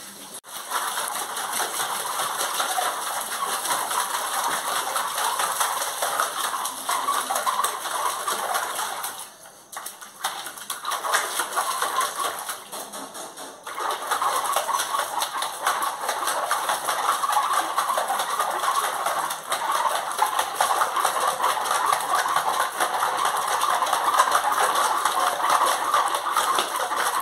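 Labrador puppy pawing at water in a plastic tub, making rapid irregular splashing that dips briefly about nine to ten seconds in.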